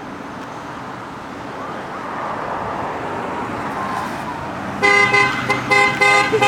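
Passing traffic swells as a vehicle approaches, then about five seconds in a car horn sounds several short honks, a chord of steady tones: a passing driver honking in support of a roadside 'honk if you love pit bulls' sign.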